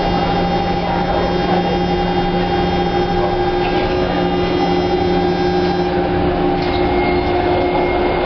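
TTC H5 subway car running at speed through a tunnel, heard from inside the car. A steady rumble of wheels on rail carries several steady tones from the running gear, with a slight shift in the higher tones about six seconds in.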